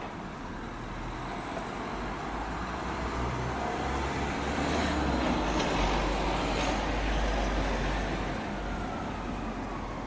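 A motor vehicle driving past on a city street: engine rumble and road noise that swell to their loudest a little past the middle and then fade.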